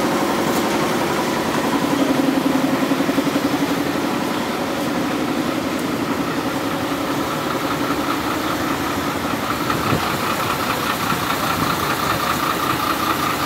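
Diesel truck engine idling with a fast, even pulsing beat. A higher pitched pulsing note comes up in the second half.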